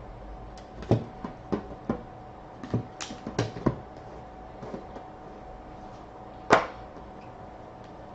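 Hands handling a trading card box and its packs: a run of light taps and knocks, then one louder knock about six and a half seconds in.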